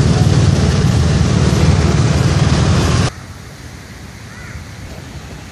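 Loud, steady rushing of wind on the microphone, which cuts off suddenly about three seconds in to a quiet open-air background with one faint chirp.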